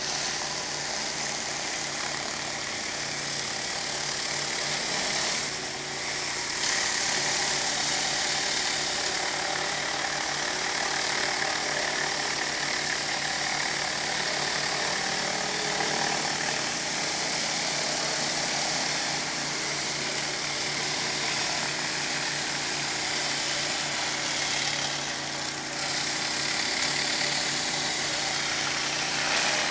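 Pressure washer engine running steadily under the hiss of water jets from a rotary surface cleaner spinning against concrete. The spray hiss dims briefly twice.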